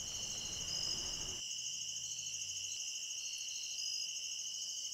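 Chorus of crickets and other singing insects: steady high-pitched trills layered with short, repeated chirps.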